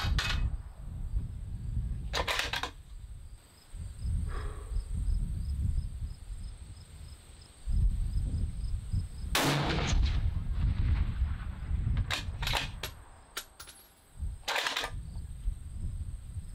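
6.5 Creedmoor bolt-action hunting rifle firing: sharp shot reports a few seconds apart over a low rumble.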